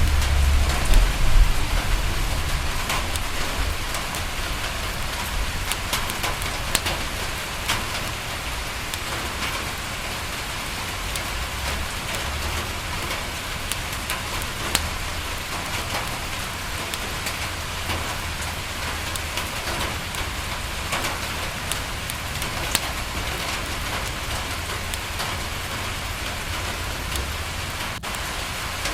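Steady rain falling on window glass, with scattered sharp ticks throughout and a low rumble in the first couple of seconds.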